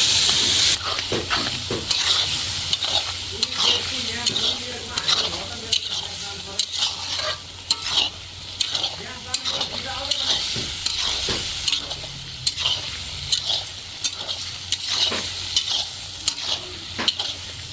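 Rakti, goat's blood with onion and spices, frying and sizzling in a hot pan while it is stirred and scraped with a spatula in many short, irregular strokes. A loud hiss fills the first second and stops abruptly.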